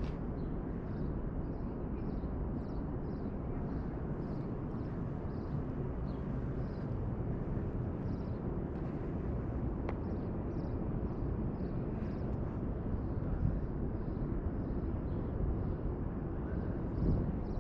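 Outdoor urban background: a steady low rumble, with faint high-pitched sounds repeating about twice a second.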